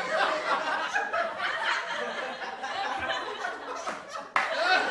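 People talking and laughing, with an abrupt cut to louder talk near the end.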